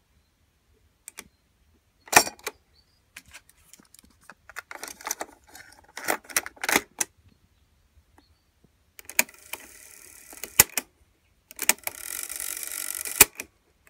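Piano-key transport controls and cassette door of a Philips N2517 cassette deck clicking and clacking as a cassette is loaded, with one loud clack about two seconds in. After that the tape winds with a steady whir in two spells, each ending with a sharp click.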